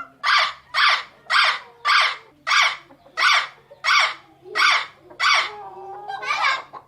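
Parrot squawking: nine short harsh calls about two-thirds of a second apart, then a longer, wavering call near the end.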